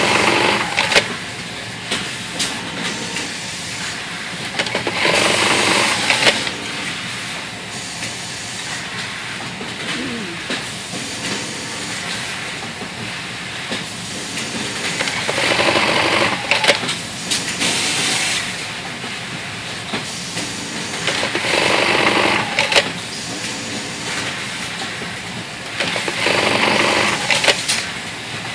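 Industrial button-sewing machine running short stitching cycles: about five bursts, each a second or so long and several seconds apart, with a few sharp clicks, over steady background machine noise.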